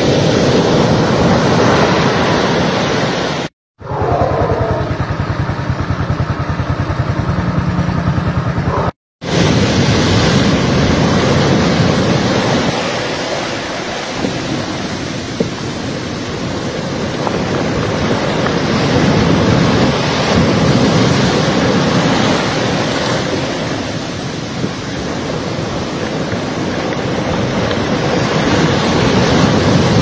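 Heavy storm surf breaking and washing up the shore, a loud continuous rush that swells and eases as the waves come in, with wind buffeting the microphone. The sound cuts out abruptly twice early on.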